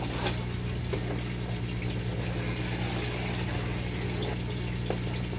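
Steady low hum with running, trickling water, as from a hydroponic system's circulating pump and the nutrient water flowing through it. A light tap about a third of a second in.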